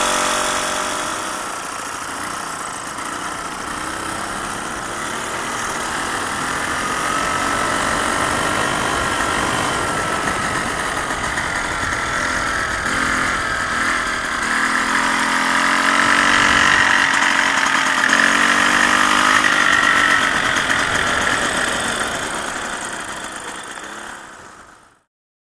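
VéloSoleX 2200's 49 cc two-stroke engine running under way, its whine wavering up and down in pitch. It grows louder in the second half, then fades out near the end.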